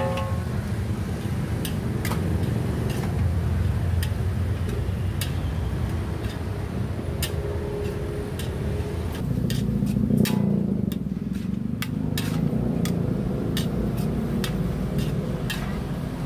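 A metal spatula clanks against a large wok in irregular strikes, coming more often after about ten seconds, while fried rice is stirred. A steady low rumble runs underneath.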